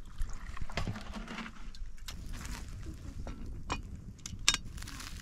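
Light clicks and knocks of a blackened metal kettle being handled and set down on a small wood fire, with one sharp clink about four and a half seconds in.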